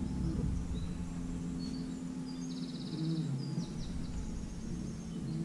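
A small songbird singing short high chirps, with a fast trill about two and a half seconds in, over a steady low hum.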